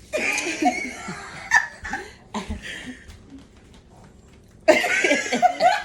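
Laughter and wordless vocal sounds from a person, in a burst at the start and another near the end, with a few short sounds between.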